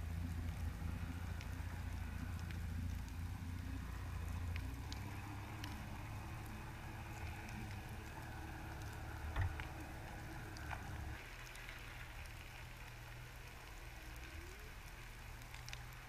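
Underwater reef ambience heard through a submerged camera: a steady fine crackle with scattered sharp clicks, one louder click about nine and a half seconds in. A low hum under it fades and drops away about eleven seconds in.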